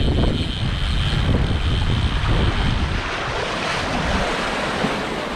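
Wind buffeting the microphone over the steady wash of sea surf, with a thin, steady high whine through the first half that then stops.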